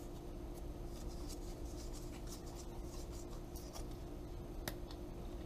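Faint rubbing and crinkling of Teflon (PTFE) thread-seal tape being pulled off its roll and wrapped around the threads of a brass thermal relief valve, many small scratchy rustles over a steady low hum.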